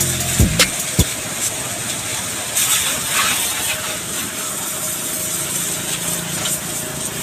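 Pressure-washer water jet spraying a car body: a steady hiss with a faint, even hum underneath.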